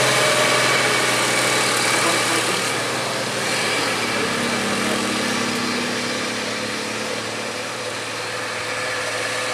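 Heavy truck's diesel engine running steadily under load as it climbs a steep grade, its sound slowly fading as it pulls away.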